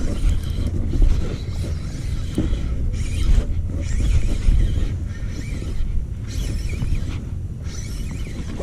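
Shimano Stradic spinning reel being cranked to reel in a hooked bass, the rod bent under the fish's pull. It plays over a steady low rumble.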